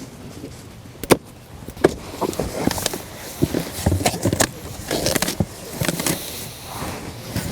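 Handling noises as the new blower is taken out of its box: irregular knocks and clicks over rustling, with a sharp knock about a second in.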